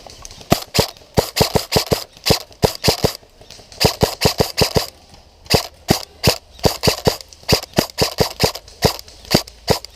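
Airsoft rifle firing quick single shots in irregular strings of about three or four a second, with short pauses between bursts, each shot a sharp crack.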